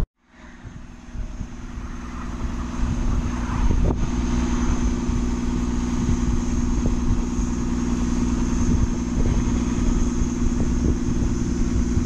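Steady low hum of idling vehicle engines in stopped traffic, with a light hiss over it; the sound fades in from silence over the first second or two.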